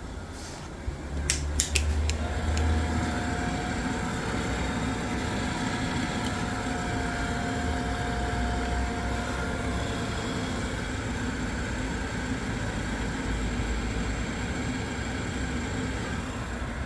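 Vaillant gas boiler firing up: a few sharp clicks about a second in, then its fan and burner running steadily, with a faint whine that fades about two-thirds of the way through. The boiler is lighting now that its faulty ignition lead, the cause of its F28 ignition-failure code, has been replaced.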